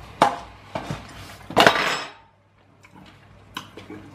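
Metal fork clicking and scraping in a Pot Pasta snack pot while eating: a few sharp clicks, a longer scrape about one and a half seconds in, then a quiet spell and more light clicks.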